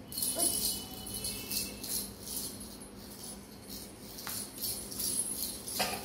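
Small bells jingling in quick, uneven shakes as a toddler moves about.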